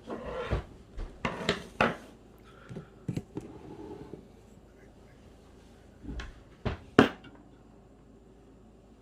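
Handling noises at a workbench: small hard objects knocking and clattering in several short bursts, then a few sharp knocks near the end, the last one the loudest.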